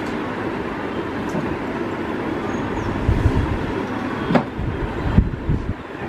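Steady low rumbling background noise, with two sharp knocks in the second half.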